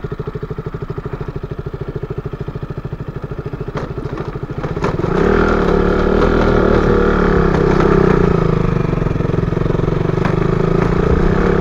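Motorcycle engine idling with an even, rapid chug, then, about five seconds in, revving up into a louder, steady run that holds.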